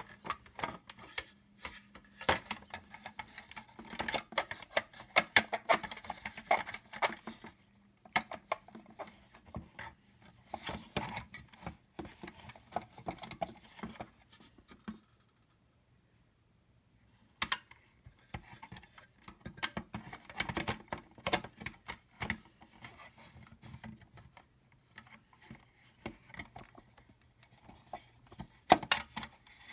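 Plastic housing parts of a Black and Decker HLVA325 cordless pet vacuum being handled and fitted together: quick, irregular clicks, rattles and scrapes of plastic, stopping for about two seconds a little past halfway.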